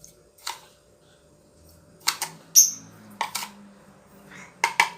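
Spoon tapping and clinking against a saucepan as spoonfuls of sugar are added: several short sharp clicks, one with a bright ringing clink about two and a half seconds in.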